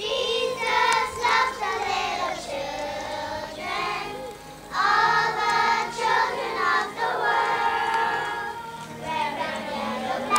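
A group of young children singing together, in phrases that start suddenly and break briefly about four and a half seconds in.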